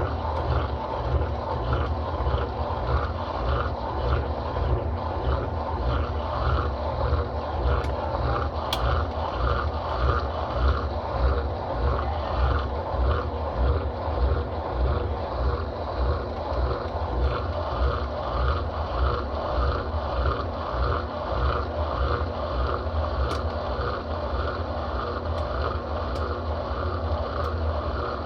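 Brastemp Total 7 kg (BWL07) washing machine running its wash cycle: a steady motor hum with a regular churning pulse, roughly one and a half beats a second.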